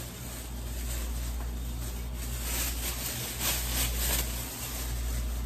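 Thin plastic bag rustling and crinkling as raw chicken fillets are handled and bagged, over a steady low hum.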